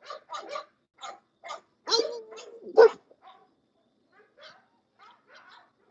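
Bulldogs in a wire kennel run barking and yipping in short, scattered bursts. The loudest two come about two and three seconds in, the first drawn out, and the last couple of seconds hold only a few faint ones.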